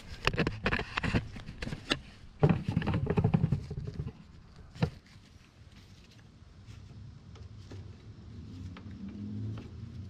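Plastic clicks, knocks and rubbing as a Briggs and Stratton plastic carburetor is pushed and worked back onto the engine's intake. The knocks come in a cluster over the first five seconds, with a sharp single knock about five seconds in. Then come quieter handling sounds, with a faint low hum in the background near the end.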